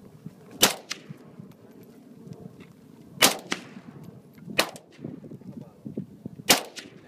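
Four single rifle shots fired one at a time, one to three seconds apart, each with a short echo.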